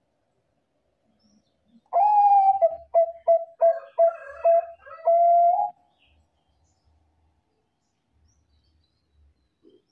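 Bangkok-type zebra dove (perkutut) cooing one song phrase, starting about two seconds in: a long opening note, a quick run of short staccato notes, and a long held closing note.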